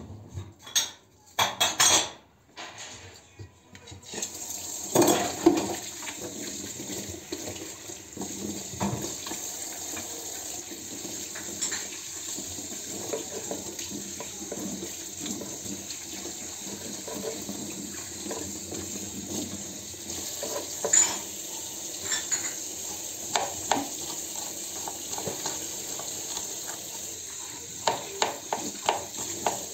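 Kitchen work: a knife and dishes click and knock at irregular intervals. From about four seconds in, a steady hiss runs underneath.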